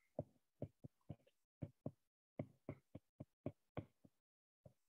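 Stylus tip tapping on a tablet's glass screen while handwriting: about a dozen faint, short clicks at an uneven pace of roughly three a second.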